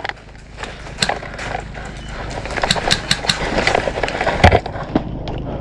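Airsoft gunfire: scattered sharp cracks of shots and BB hits. There is one crack about a second in, a quick run of four midway, and a heavier hit near the end.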